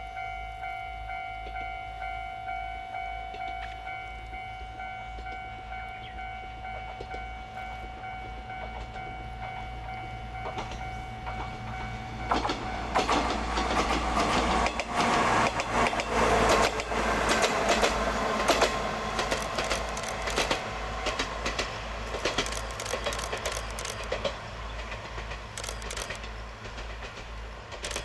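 A railway crossing warning bell ringing in steady, even pulses. About twelve seconds in it gives way to a Kashima Railway diesel railcar approaching, a louder clattering and rattling of wheels on the track.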